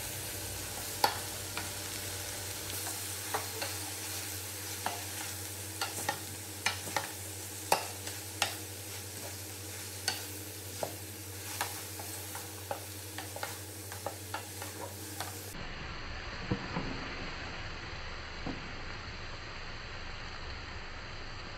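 Wooden spatula stirring and tossing shredded cabbage, carrots and green beans in a metal pot, knocking sharply against the pot's side every second or so over a steady sizzle of the vegetables sautéing.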